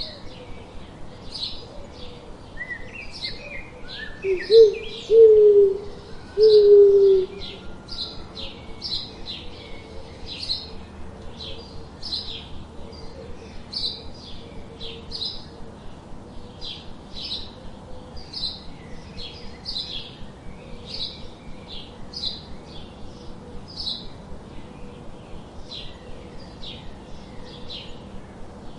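Wild birds singing, a quick high chirp repeated about twice a second throughout. Between about four and seven seconds in, three much louder low-pitched calls stand out, the last held longest.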